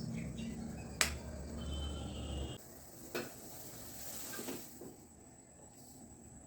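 Kitchen handling sounds: a sharp click about a second in and a smaller knock about three seconds in, over a low rumble that cuts off suddenly about two and a half seconds in, then a brief hiss.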